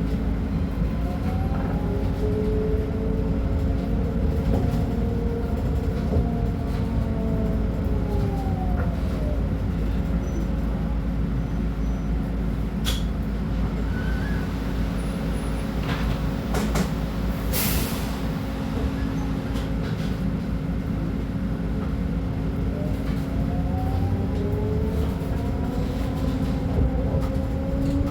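Scania K310UB city bus's diesel engine running, a steady low drone with a whine that rises and then falls in pitch twice, once near the start and once near the end. A few sharp clicks sound in the middle.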